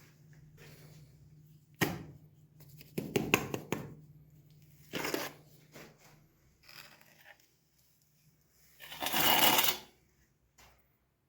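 Handling noises: a sharp click, a quick run of clicks and rattles, then short rustles, with a louder rustling noise lasting about a second near the end. A faint steady low hum sits underneath in the first half.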